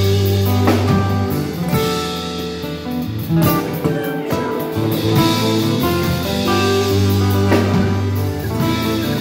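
Amplified nylon-string electric guitar playing a melodic line with chords, over sustained low notes.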